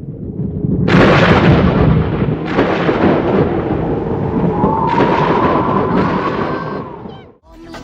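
Thunder sound effect: a rolling rumble that breaks into a loud crash about a second in, with two more crashes at roughly two-and-a-half and five seconds, then dies away shortly before the end.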